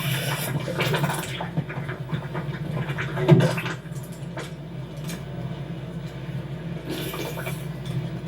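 Animated-film sound effects: a steady low machine hum with several short rushing, hissing bursts, the loudest a little over three seconds in.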